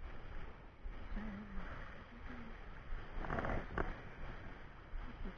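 Surf washing and churning against shoreline rocks, with wind buffeting the microphone. About three seconds in comes a brief burst of rapid clicking.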